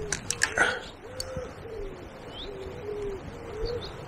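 Pigeon cooing: a run of soft, low, rising-and-falling coos about two to three a second, over the steady rush of fast river water.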